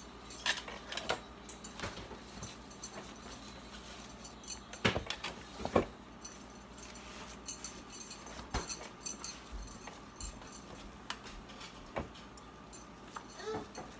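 Scattered light knocks and crinkles from a stainless steel pot and a disposable aluminium foil pan as ground-beef meatloaf mixture is scooped by hand from one into the other. The sharpest knocks come about five and six seconds in.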